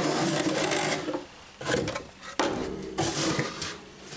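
Cardboard box flaps rubbing and a hard plastic carrying case scraping against the cardboard as it is pulled out of the box: a continuous scrape for about a second, then a few shorter scraping bursts.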